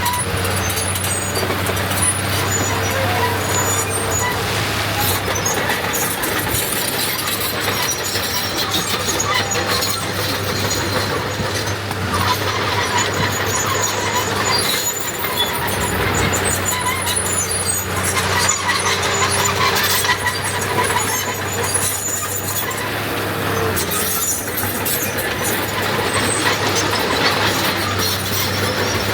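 Heavy diesel earthmoving machinery running steadily under load, with frequent short, high metallic squeals over the engine.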